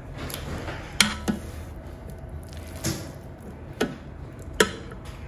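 Kitchen tongs knocking against the metal inner pot of an electric cooker while spaghetti with ground beef is stirred. There are about five sharp knocks, the loudest about a second in and near the end.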